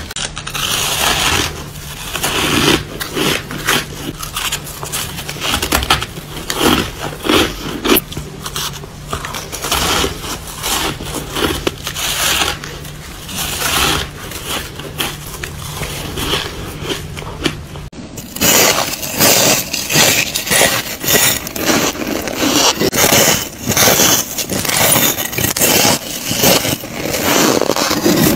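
Close-miked crunching of soft shaved ice and freezer frost being bitten and chewed, one irregular crunch after another. A steady low hum runs under the first part and stops about two-thirds of the way in.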